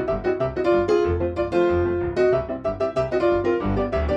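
Background keyboard music: a quick run of piano-like notes over low bass notes.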